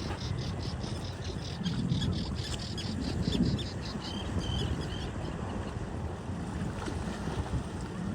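Common tern chicks giving a fast, even series of high begging peeps, about five a second, that fade out about halfway through. Wind on the microphone and surf rumble underneath.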